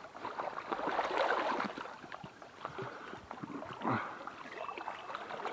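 Creek water sloshing and splashing close by, with irregular crackling rustles, as a hand works at a fishing line snagged in the bankside grass; a stronger splash comes about four seconds in.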